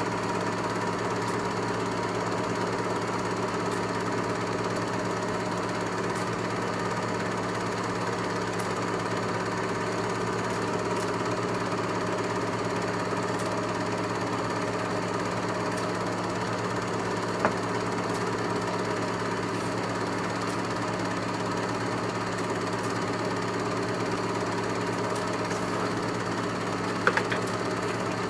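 Film projector running steadily, its motor hum and film transport going without change, with a sharp click about two-thirds through and another near the end.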